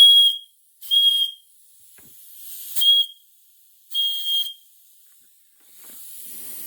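Steam whistle of a coal-fired live-steam garden railway locomotive, opened by radio control, giving four short toots on one steady high note, about a second apart with a longer gap after the second. A steady hiss of steam comes back near the end.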